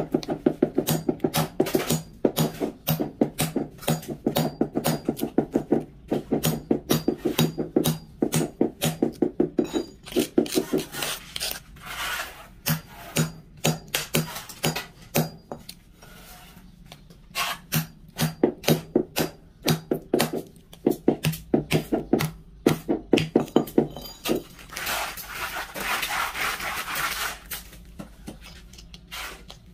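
Rubber mallet tapping ceramic floor tiles to bed them into the mortar: quick runs of dull taps, several a second, with pauses between runs. A stretch of scraping near the end.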